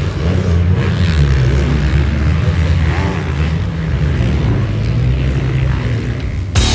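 Motocross bike engines running on the track, with people talking; rock music cuts in near the end.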